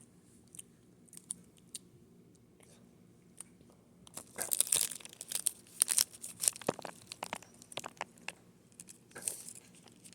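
Close-up crunching and crinkling of a person eating a snack: a few small clicks at first, then a dense run of irregular crunches from about four seconds in.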